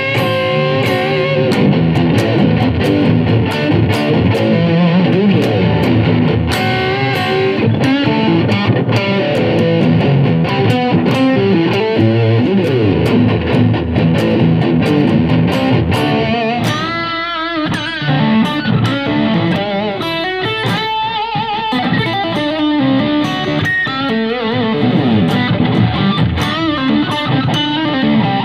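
Electric guitar (a Fender Stratocaster) played through a Yamaha THR10 combo amp on a rock tone: dense riffing, then partway through a new take with more separate notes and bends, picked up from farther from the amp.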